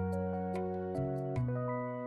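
Background music: a gentle tune of held notes with light ticks, fading out in the second half.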